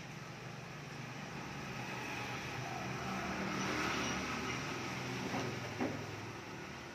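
A vehicle engine running with a steady low hum that grows louder to a peak about four seconds in and then fades. Two short sharp knocks come near the end.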